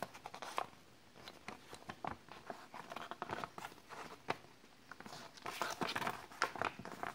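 A folded printed paper sheet rustling and crinkling as it is unfolded and handled, in a series of short crackles that grow busier and louder near the end.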